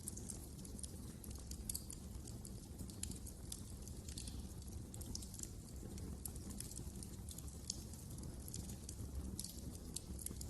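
Wood fire crackling in a fireplace: many irregular sharp pops and snaps over a steady low noise from the burning.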